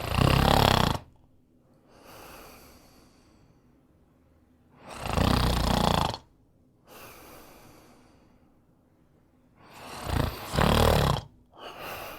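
A man snoring: three loud snores about five seconds apart, each followed by a softer breath out.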